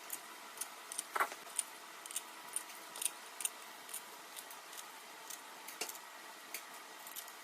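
Light metallic clicks and ticks, irregular at about two or three a second, with one louder clink about a second in: small bolts and metal parts being handled and started into a Turbo 350 transmission's valve body.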